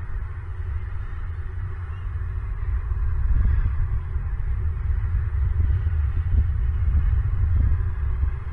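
A low, steady rumble with a hiss above it, rising and falling a little in strength.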